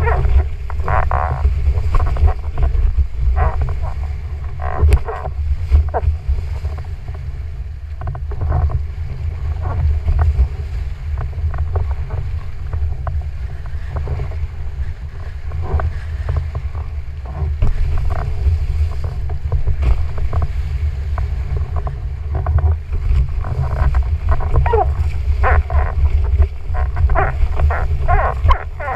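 Wind buffeting the microphone in a steady low rumble, over the rush and splash of water from a windfoil board flying across choppy sea, with irregular splashes throughout.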